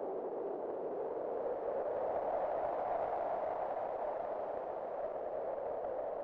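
Wind howling steadily, its pitch rising a little about halfway through and sinking back.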